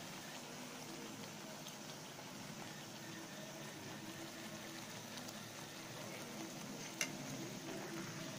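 Bhatura dough deep-frying in hot oil in a steel kadhai, a steady bubbling sizzle, with a single sharp click about seven seconds in.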